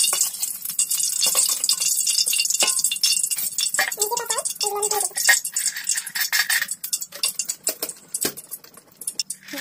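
Hot oil sizzling and crackling in a large iron kadai, with a metal spatula scraping and knocking against the pan. Small pieces dropped in to test the heat start to fry. The crackle thins out near the end.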